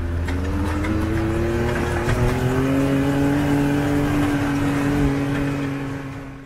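Side-by-side UTV engine running while driving on a dirt road, heard from inside the open cab. The pitch climbs over the first few seconds as it speeds up, then holds steady, and the sound fades out near the end.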